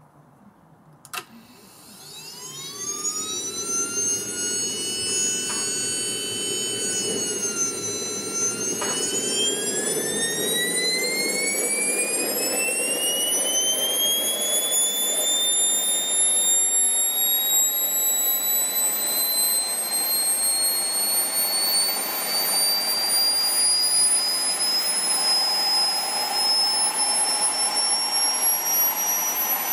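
KingTech K142 G4 model jet turbine going through its automatic start sequence. A click about a second in, then a whine that rises as the turbine spins up, dips briefly near the eighth second, and climbs steadily in pitch over a rushing hiss as the engine lights and accelerates through its start stages.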